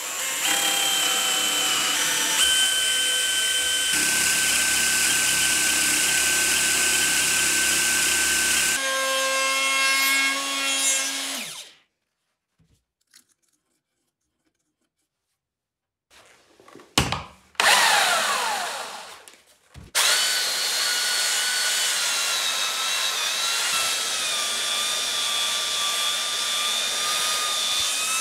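Electric power tool motor running with a steady whine. It stops for a few seconds about halfway through, winds down with a falling pitch, then runs steadily again for the last third.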